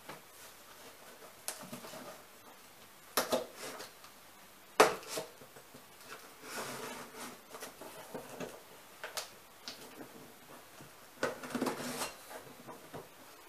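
A knife slitting packing tape on a cardboard box: scattered scrapes, taps and tape crackles, with one sharp knock about five seconds in.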